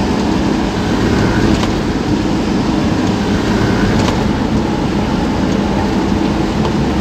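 A vehicle driving through city traffic: steady engine and road noise.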